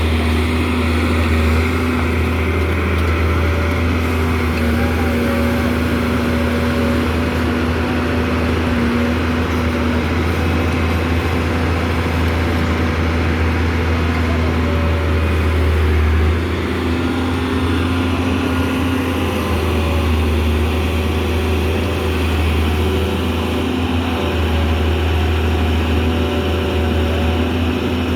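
Large Doosan excavator's diesel engine running steadily under working load, with a whine that steps up and down in pitch as the machine works. The deep engine drone eases a little about halfway through.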